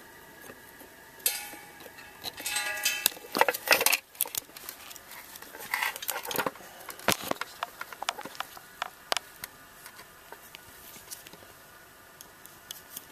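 Hands and tools working on a small hard-start relay: irregular clicks, clinks and scrapes of metal and plastic, busiest in the first half, with a few short squeaky scrapes in the first few seconds.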